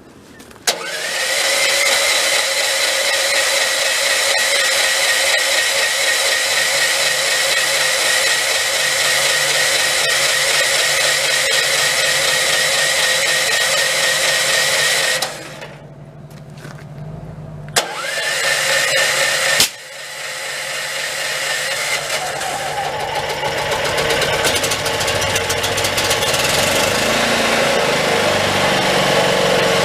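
Predator 8750 inverter generator engine being started on wood gas: it runs steadily for about fifteen seconds and dies, fires briefly and cuts out again, then catches and settles into steady running near the end. The stalls are the engine struggling until the wood gas supply is primed.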